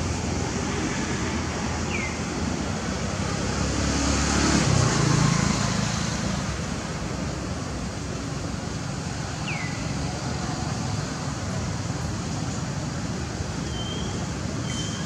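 Steady outdoor road-traffic noise, with a low rumble that swells about four to five seconds in as a vehicle passes. Two brief high falling chirps stand out over it, one early and one about halfway through.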